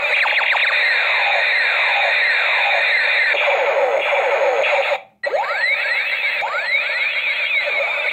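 Toy space gun's electronic sound effect: many overlapping laser-like tones sweeping up and down over and over. It cuts off about five seconds in and starts again almost at once.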